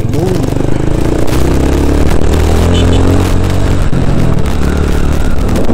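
Motorcycle engine running under way, heard from the bike itself, its note climbing over the first couple of seconds as it accelerates past a slower vehicle and then holding steady, with wind and road rush over it.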